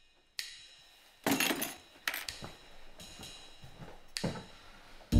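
A framed photo dropped into a wastebasket, landing with a loud clattering thunk about a second in. Around it are a few sparse percussion hits with ringing cymbal-like tails.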